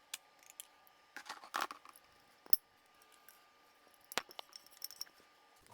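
A few scattered light clicks and knocks of glass pantry containers and their lids being handled on a counter, with a small cluster of taps about a second and a half in.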